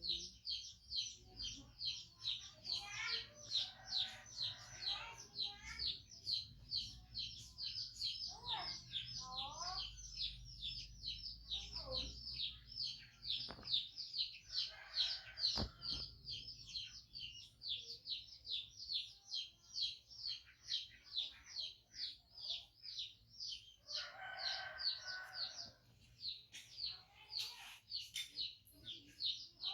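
A high chirp repeating quickly and evenly, about three or four times a second, with three short spells of lower clucking calls mixed in.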